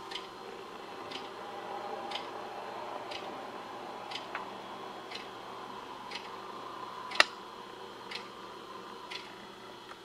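Regular ticking, about one tick a second, like a clock, over a faint steady hum. One tick about seven seconds in is much louder.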